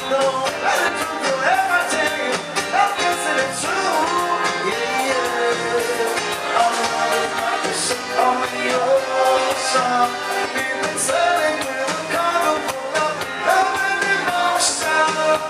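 Upbeat dance music with a singing voice over a steady drum beat.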